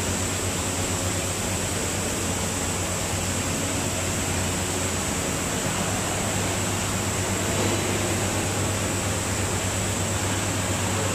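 Steady background noise of a tire shop: a constant low machinery hum under an even hiss, with no distinct events.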